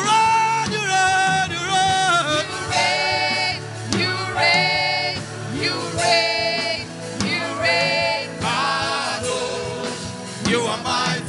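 Worship music: a singing voice holds a string of long notes over a steady instrumental backing.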